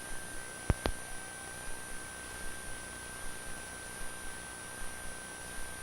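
A faint, steady electronic tone over a low hiss, with two sharp clicks close together a little under a second in.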